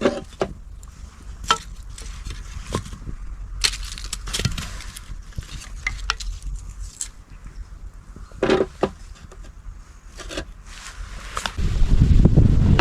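Scattered sharp knocks and clicks, then strong wind gusts buffeting the microphone with a low rumble for the last second or so.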